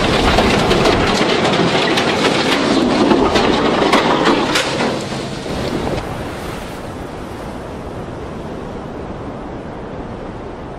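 Crashing and cracking of steel and debris as a large ship's bow rams a smaller vessel's superstructure, with many sharp snaps over the first five seconds. After that it settles into a steady rush of wind and sea noise.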